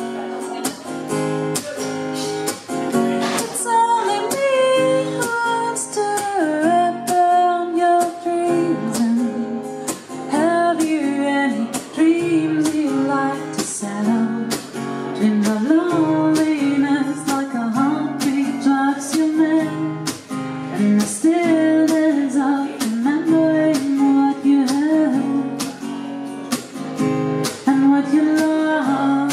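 Live acoustic guitar strummed in a steady rhythm, with a woman singing the melody over it.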